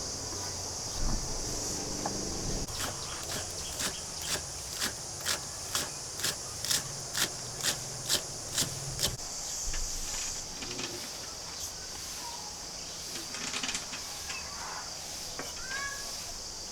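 Steady high insect buzz, with a run of about a dozen evenly spaced sharp knocks, about two a second, through the first half.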